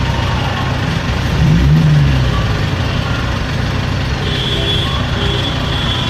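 Steady car engine and traffic rumble heard from inside a car in slow street traffic. A brief low rising tone comes about a second and a half in, and a high steady tone sounds on and off in the second half.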